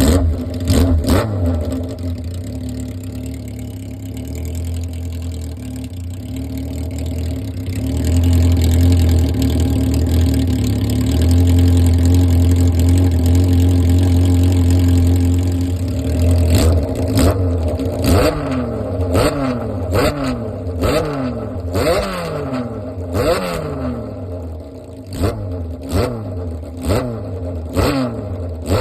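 Kawasaki Z400FX air-cooled inline-four running through a four-into-one collector exhaust with its dedicated silencer: a deep, steady idle that lifts a little about a third of the way in. From a little past halfway it gives repeated throttle blips, revs rising and falling about once a second.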